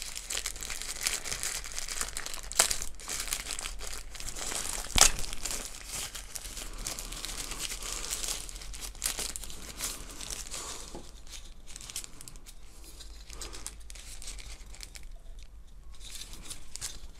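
Thin white wrapping crinkling and rustling as hands unfold it from a small packed part, with a few sharper crackles in the first few seconds; the handling gets quieter and sparser in the second half.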